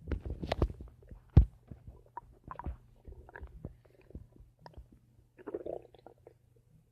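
Human stomach gurgling: a run of irregular pops and squelchy gurgles, the loudest a sharp pop about a second and a half in, with a longer bubbling gurgle near the end.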